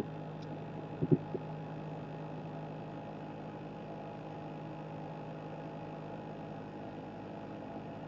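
Steady electrical hum, with a few light clicks about a second in.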